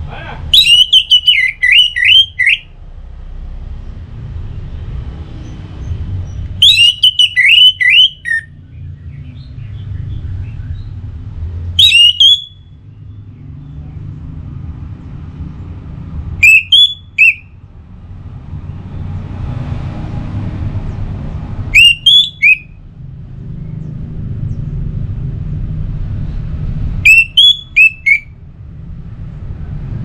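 Orange-headed thrush singing: six loud phrases of quick, falling whistled notes, each one to two seconds long, with pauses of several seconds between them. A low rumble fills the gaps between phrases.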